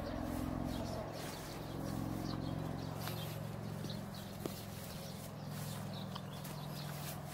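Footsteps swishing through tall grass, a run of soft irregular steps and rustles over a steady low hum.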